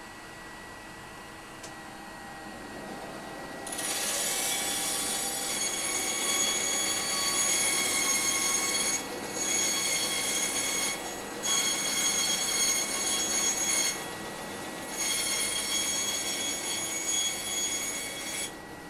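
Band saw running, then cutting through a painted wooden board from about four seconds in with a loud, high-pitched screech. The cut breaks off briefly three times before it stops near the end.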